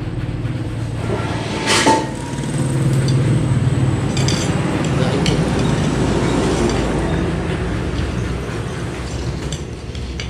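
Clinks of dishes and glassware over a steady low rumble that swells through the middle and eases off, with a sharp clink or knock about two seconds in.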